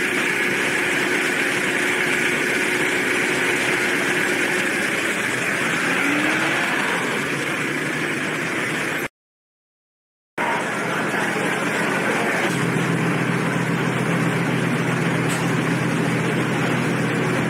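Steady engine noise of vehicles idling in a ferry terminal car lot. It cuts out for about a second, then gives way to a steady low drone from a car ferry's engines, heard inside the passenger cabin.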